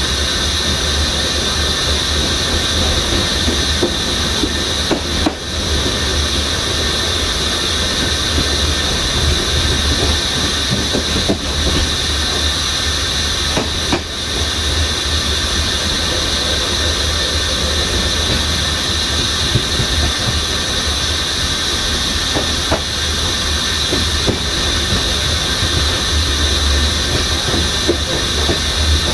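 Passenger train running along the track: a steady rumble of wheels on rail under a constant high hiss, with a few faint knocks.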